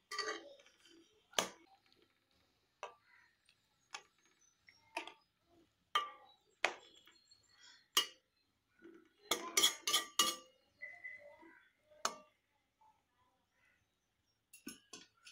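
Slotted metal spatula knocking and scraping against a metal kadai while whole brinjals are turned in the masala: scattered short clinks and taps, with a quick run of several about nine to ten seconds in.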